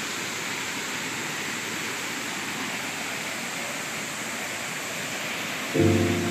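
Small waterfall spilling over boulders into a rocky pool: a steady rush of falling and splashing water. A steady pitched sound comes in and grows louder near the end.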